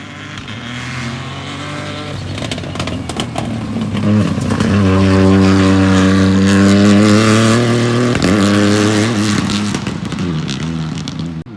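Rally car at full throttle, approaching and passing close by. Its engine note builds to a loud, steady peak in the middle, with a brief break in the note about eight seconds in, then carries on before cutting off suddenly near the end.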